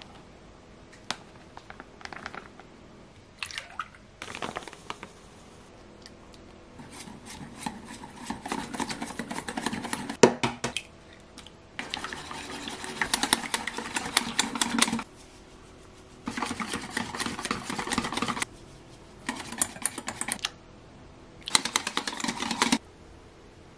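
Wire whisk beating egg yolk in a stainless steel bowl: rapid clicking and scraping of the wires against the metal, in about five bursts of one to three seconds with short pauses between. It follows a few light taps and clicks.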